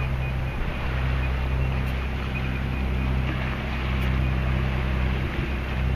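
A sailboat's auxiliary engine running steadily under way, a low hum under the rush of water and wind. Over it the depth alarm beeps faintly and rapidly, warning of very shallow water, and falls silent a little past halfway.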